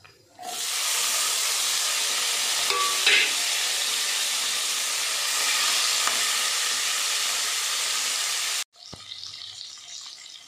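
Chopped tomatoes and green chillies hitting hot oil in a non-stick kadai, frying with a loud, steady sizzle that starts about half a second in, stirred with a wooden spatula. Near the end the sizzle drops suddenly to a much quieter one.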